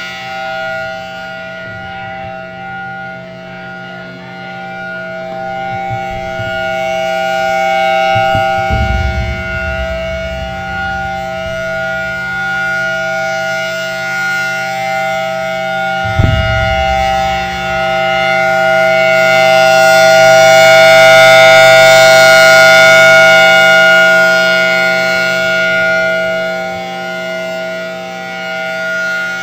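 Federal Signal Thunderbolt 1000T civil defense siren sounding a steady-pitched chord tone for the weekly Monday-noon siren test. The sound swells and fades as the siren rotates and is loudest about two-thirds of the way in. Two short low thumps come near the middle.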